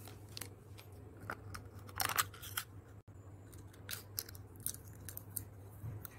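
Aluminium foil crinkling and crackling in irregular bursts as it is pressed into a small aluminium pot to line it.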